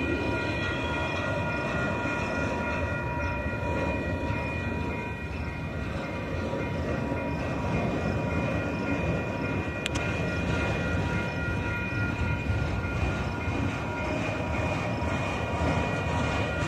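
Freight train of autorack cars rolling past close by: a steady rumble of wheels on rail, with a steady high whine held over it and a single sharp click about ten seconds in.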